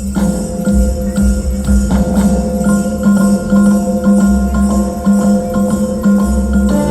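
Dance music with jingling bells over a steady pulsing beat, a bass line and held melodic notes.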